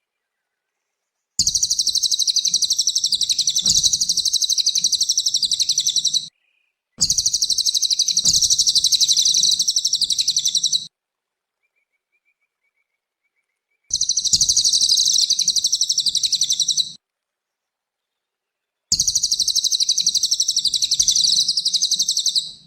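A cililin songbird singing in rapid, high chattering phrases. It sings four bouts of about three to five seconds each, and the bouts are separated by complete silence.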